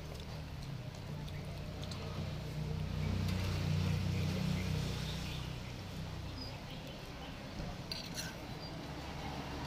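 Low, steady engine hum that swells for a couple of seconds midway, with a few light clinks of cutlery near the end.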